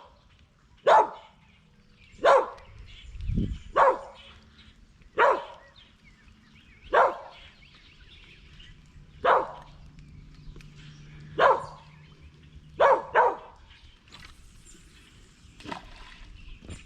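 A dog barking repeatedly, one short bark every second or two, with a quick double bark near the end.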